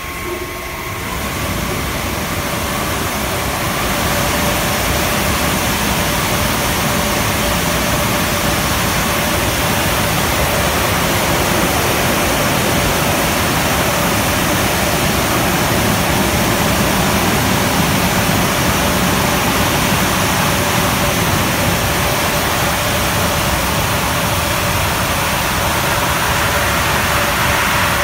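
Automatic tunnel car wash equipment running: a loud, steady rushing noise that builds over the first few seconds and then holds, with a faint steady hum underneath.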